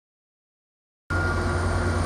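Renfe class 334 diesel locomotive running steadily as it brings the Talgo train into the station, with a low engine hum and a thin steady whine above it. The sound cuts in suddenly about a second in.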